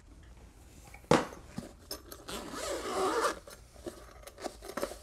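A zippered hard-shell headphone case being handled: a knock about a second in, then about a second of rasping from the zipper and its fabric-covered shell, with small ticks from the zipper pull.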